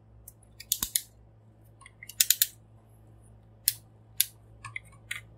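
Plastic parts and joints of a Mastermind Creations Proditor Nimbus transforming robot figure clicking as it is handled and posed. The sharp clicks come in small clusters: a few just before a second in, a quick run about two seconds in, then single clicks later.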